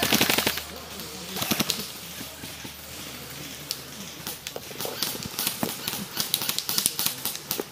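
Long grass and clothing rustling and crackling as a prone player shifts an airsoft rifle and body through the vegetation. The heaviest rustle is at the start and again about a second and a half in, with a run of small sharp ticks near the end.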